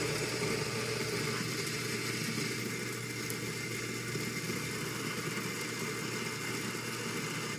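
On-demand espresso burr grinder running steadily as it grinds a dose of coffee beans, with a steady motor hum that cuts off at the very end.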